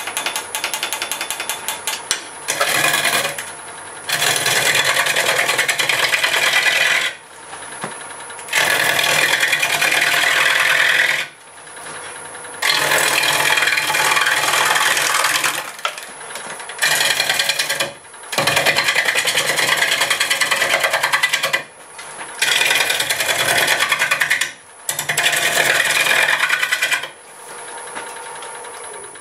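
Turning gouge cutting a spinning green apple-wood half-log on a wood lathe during a roughing cut. There are about eight rough, scraping passes of a few seconds each, separated by short quieter gaps. Each pass is full of rapid rattling ticks as the still out-of-round blank strikes the tool every turn.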